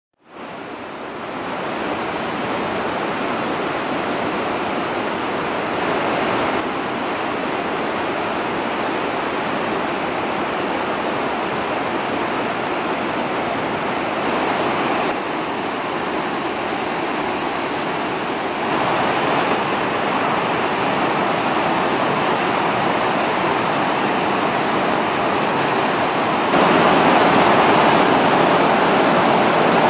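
Rushing river water, a steady wash of noise that steps up or down at several cuts and is loudest in the last few seconds.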